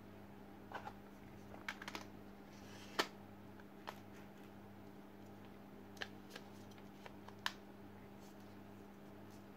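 Scattered small clicks and taps of a camera lens and its bayonet lens hood being handled and fitted, with the sharpest click about three seconds in. A faint steady hum runs underneath.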